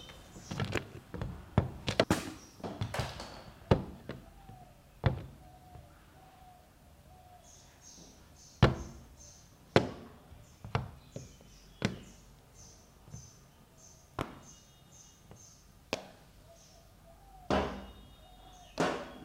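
Plastic toy dinosaurs being set down, knocked together and picked up on the hard lid of a washing machine: about a dozen separate knocks and clacks.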